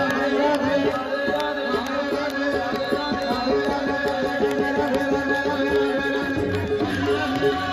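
Live devotional bhajan music: a brisk tabla beat over steady held instrumental notes.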